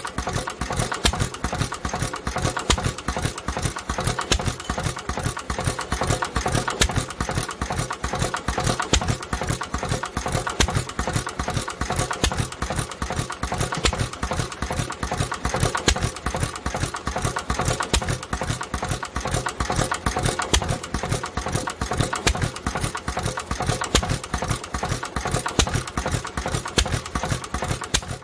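International Type M 3 HP hit-and-miss engine running steadily, a rhythmic clatter of strokes with louder firing beats at uneven intervals. It is running with its crankcase breather stuck.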